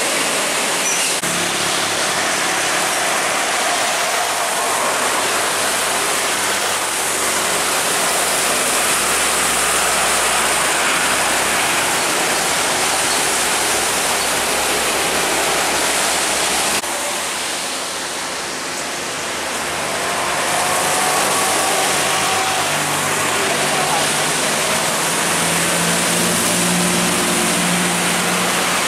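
Heavy diesel trucks driving past on a rain-soaked road: a steady hiss of tyres spraying on wet tarmac and rain, with the low hum of truck engines under it. The sound drops abruptly about 17 seconds in, then builds again.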